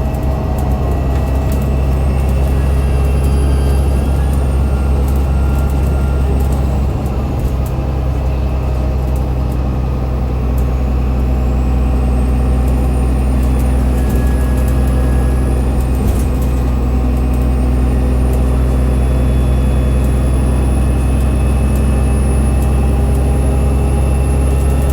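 Onboard sound of an ADL Enviro500 MMC double-deck bus under way, its Cummins ISL8.9 six-cylinder diesel and ZF 6AP1700B automatic gearbox making a steady low drone. Over it is a faint high whine that rises and falls in pitch a few times and settles near the end, the unusual axle noise.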